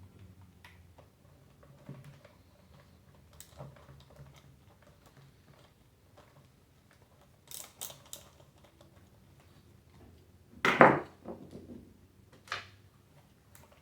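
Small clicks and scrapes of hand-tool work on a Dyson cordless vacuum's plastic housing as its battery is unscrewed, with a few louder plastic clacks in the second half.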